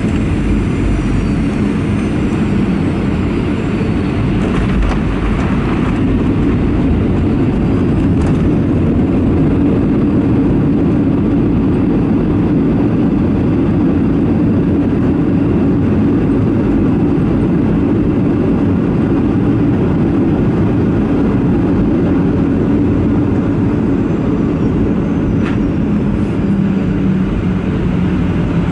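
Boeing 737-800 cabin noise on the landing rollout: a loud, steady rumble of the airliner's wheels on the runway and its CFM56 jet engines, with a falling whine in the first few seconds as the engines spool down.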